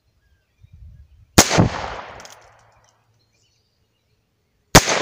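Two shots from a Heritage Rough Rider .22 LR single-action revolver, about three and a half seconds apart, each a sharp crack that trails off over about a second.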